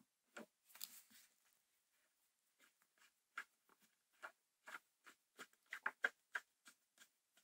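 Small precision screwdriver turning a screw in the metal top cover of a Pentax ME Super camera: faint, irregular clicks and short scrapes of the tip in the screw head, coming thicker and faster in a run of clicks about five to six seconds in.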